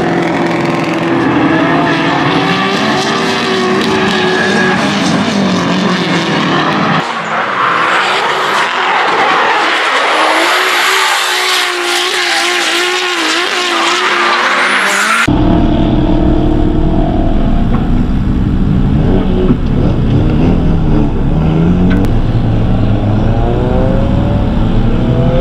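Drift cars at high revs with tires squealing, the engine note wavering as the throttle is worked. About fifteen seconds in it cuts to the deep, low-revving run of the red 2JZ-swapped Nissan Silvia S15, heard close from on the car.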